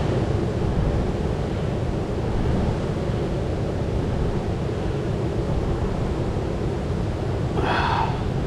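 Steady rushing noise of flowing creek water mixed with wind on the microphone. A short pitched sound, under a second long, comes near the end.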